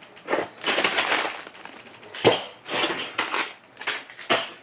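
Plastic model-kit parts being handled: a series of rustling, clattering bursts with a sharp clack a little past the halfway point.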